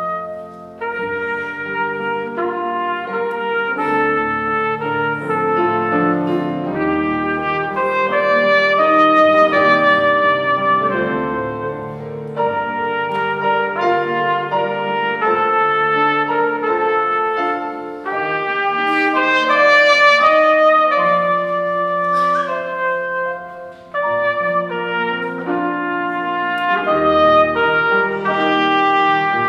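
A trumpet playing a melody over piano accompaniment, the notes following one another with two short breaks, shortly after the start and about 24 seconds in.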